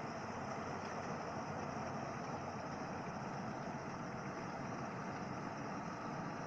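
Yanmar AW82V combine harvester's diesel engine and machinery running steadily while it cuts rice, an even hum with no changes in pace.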